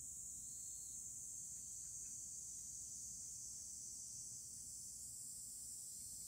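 Faint, steady, high-pitched insect chorus with no breaks, over a low steady hum.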